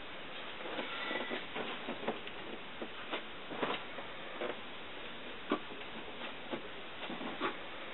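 Scattered light ticks and scrapes at an irregular pace over a steady background hiss.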